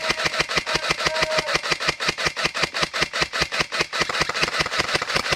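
A fast, steady mechanical rattle of sharp clicks, about nine a second, without a break.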